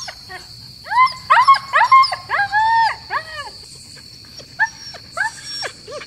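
Harnessed huskies whining and yelping, a quick run of short rising-and-falling cries about a second in, then a few more near the end: the eager noise of sled dogs waiting to pull.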